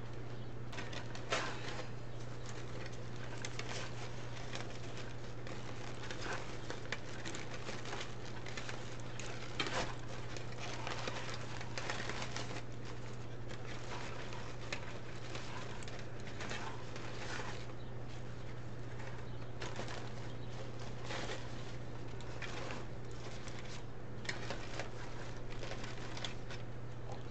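Irregular rustling and crinkling of plastic deco mesh and ribbons as hands fasten a sign onto a wreath with a tie, over a steady low hum.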